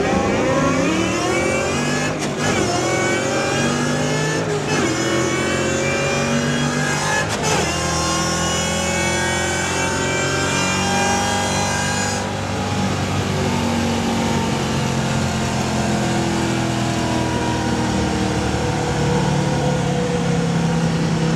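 Classic Camaro drag car accelerating at full throttle. The engine climbs in pitch and shifts up three times, about two and a half seconds apart, then runs steadily at lower revs for the rest of the run.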